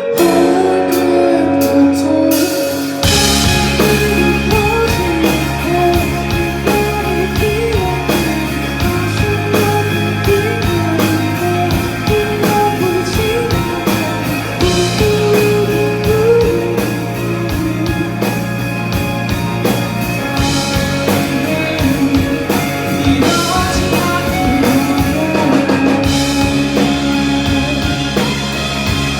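Live rock band playing: electric guitars carry the melody, and drums and bass come in heavily about three seconds in.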